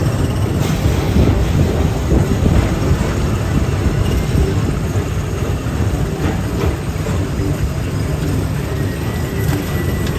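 Tomorrowland Transit Authority PeopleMover train running along its track: a steady rumble of the cars in motion, heard from on board.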